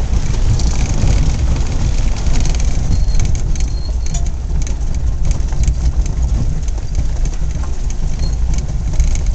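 A car driving over a rough gravel dirt road, heard from inside the cabin. The engine and tyres make a loud, steady low rumble, with many small clicks and rattles over it.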